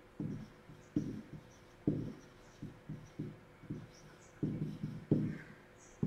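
About ten soft, dull taps at an irregular pace, each dying away quickly: a stylus knocking on a writing tablet as handwriting is put down stroke by stroke.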